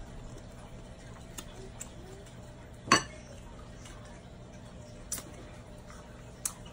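Dishes clinking: a few light taps of fingers, shrimp or a fork against a glass sauce bowl and a plate, with one louder clink about three seconds in.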